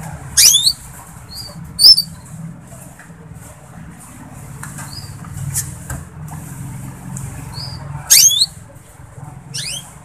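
Canaries calling: two sharp, sweeping high-pitched chirps in the first two seconds and two more near the end, with soft short peeps in between.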